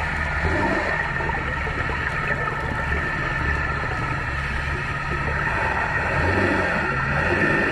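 Steady low engine hum carried through the water, over an even hiss of underwater noise, as heard from below the surface.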